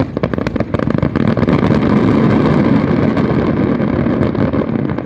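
Fireworks barrage: rapid separate bangs in the first second or so merge into a dense, continuous din of overlapping bursts and crackle. It is loudest midway and eases near the end.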